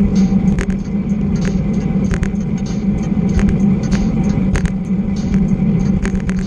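Bicycle riding at about 21 mph on cracked asphalt, heard from a handlebar-mounted camera: a loud steady rush of wind and tyre rumble, with sharp rattling clicks about once or twice a second.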